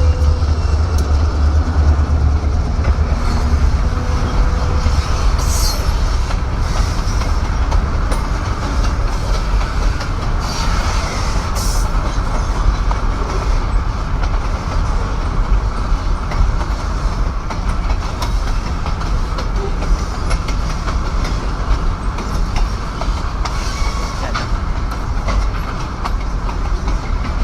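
Lancaster & Chester freight train being shoved past, the locomotive pushing its cars: railcars rolling by with wheels clicking over the rail joints above a steady low rumble, with a couple of brief high squeals from the wheels.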